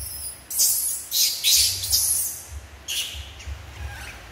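Baby macaque giving a series of short, high-pitched squeals, mostly in the first two seconds, with a fainter one about three seconds in.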